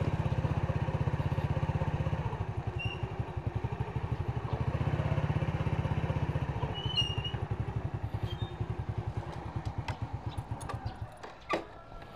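Small motorcycle engine running at low revs with an even putter, then cut off about eleven seconds in, followed by a few light clicks.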